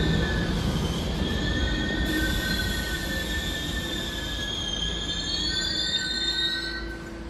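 R68A subway train slowing into a station, its wheels and brakes squealing in high, steady tones over a low rumble. The squeal climbs a little in pitch, then stops just before the end as the train comes to a halt.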